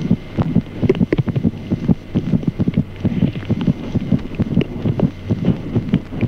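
Fetal heart sounds auscultated through the mother's abdomen: fast, evenly repeating heartbeats, several a second. Underneath is the mother's own pulse as a soft systolic murmur.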